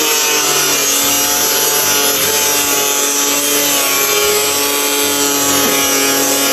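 Small corded power tool running steadily with a motor whine and cutting hiss as it is guided along a line across a large white panel.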